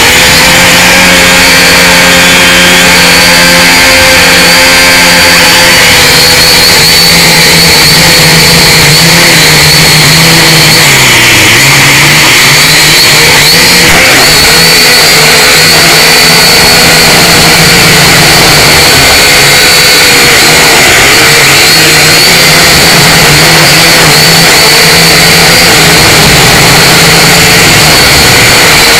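Syma X5C quadcopter's small brushed motors and propellers whining loudly, picked up by its onboard camera microphone, with the pitch wavering up and down as the throttle changes.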